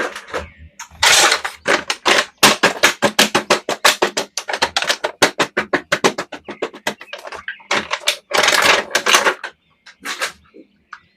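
Rapid plastic clicking and crackling from action-figure toys and their packaging being handled, with two longer crinkling bursts, one about a second in and one near the end.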